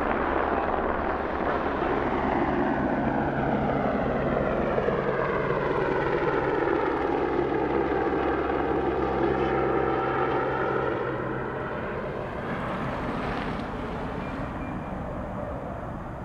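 Single-engine Airbus AS350 AStar helicopter flying low overhead, its turbine and rotor running steadily. The sound sweeps in pitch as it passes, then fades over the last few seconds as it moves away.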